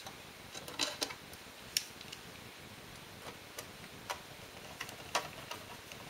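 Irregular small metallic clicks and ticks as a precision screwdriver drives the tiny screws back into the aluminium bottom case of a MacBook Pro, screws put in lightly at first.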